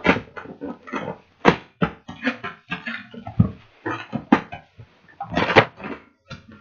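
Cardboard box being torn open by hand: a run of short rips and crackles of packing tape and cardboard, with a longer tear a little after five seconds.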